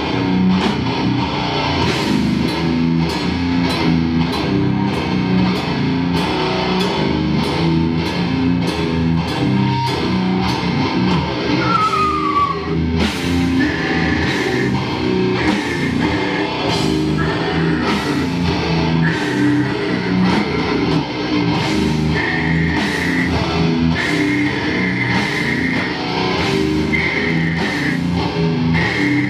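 Heavy rock band playing live: distorted electric guitar riffing over a pounding drum kit with regular cymbal crashes. From about halfway, a high held note keeps returning over the riff.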